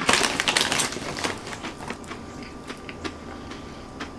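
Pork rinds crunching as they are bitten and chewed: a dense burst of crunches in the first second, then scattered, fainter crunches.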